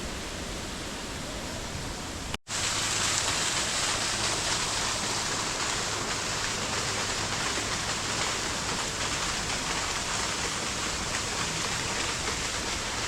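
Steady rush of falling water from a waterfall. It cuts out for a moment a couple of seconds in and comes back louder and brighter.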